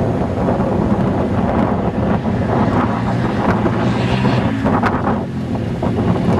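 Polaris Outlaw 525 ATV's single-cylinder four-stroke engine running under throttle as the quad is ridden hard across dirt, mixed with heavy wind noise on the microphone.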